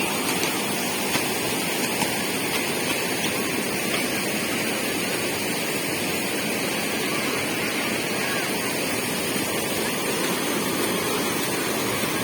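Rushing water of the Tamirabharani River, a steady, even noise throughout.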